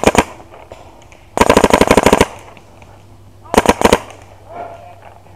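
Proto Rail paintball marker firing in rapid bursts of sharp pops. A short burst comes at the start, a fast string of about a dozen shots follows around one and a half to two seconds in, and another short burst comes near four seconds.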